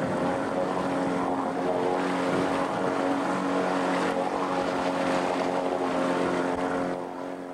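Boat engine running steadily at a constant speed, with wind and water noise over it; it fades out near the end.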